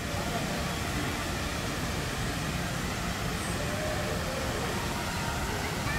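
Steady outdoor background noise with a heavy, uneven low rumble, and faint distant voices about halfway through.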